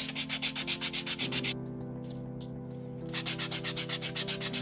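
A sanding sponge scrubbed rapidly back and forth over a small model part, several strokes a second. The strokes pause for about a second and a half in the middle, then start again. Background music with steady tones plays underneath.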